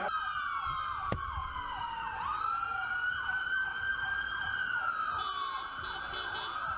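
Police car sirens wailing: one slow rising and falling tone, with a second siren's quicker repeated downward sweeps beneath it. A single sharp click about a second in.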